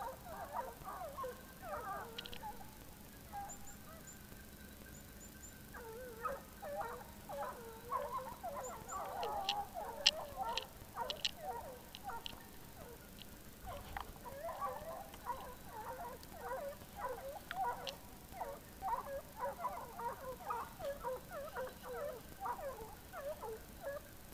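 A pack of hunting hounds baying on a boar drive: many short yelps overlapping one another, fading for a couple of seconds about halfway through and then picking up again.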